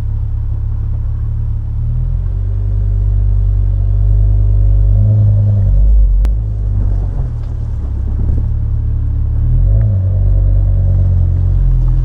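BMW E61 M5's 5.0-litre V10 running through its standard rear silencers: a deep, steady exhaust drone at low speed that swells twice with throttle, about five and ten seconds in. A single sharp click sounds about six seconds in.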